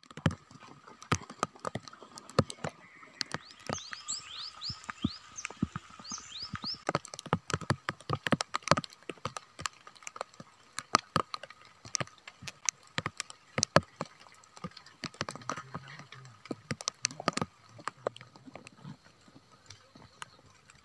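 Irregular sharp taps and clicks close to the microphone, scattered unevenly throughout. About four to six seconds in there is a run of quick, high, falling chirps, and a faint steady high tone sits underneath.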